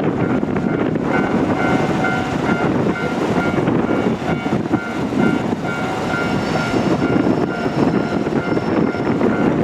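Long container freight train rolling past, a steady rumble of wheels on the rails, with a thin high-pitched ringing tone that cuts in and out from about a second in until near the end.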